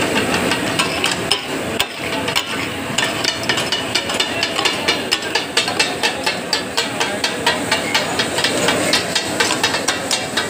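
Katakat: steel spatula blades striking a large flat iron griddle as meat is chopped and fried, several metallic strikes a second over a steady sizzling hiss. The strikes are sparse for the first few seconds, then come thick and fast.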